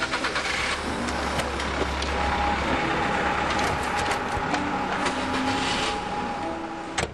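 City street traffic: vehicle engines running with a steady low rumble and passing traffic noise, with a steady high-pitched tone through the last few seconds.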